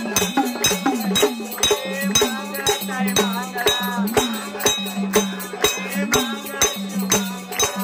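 Devotional aarti hymn to the goddess Yellamma: voices singing over rhythmic hand clapping and jingling hand percussion, on a steady quick beat.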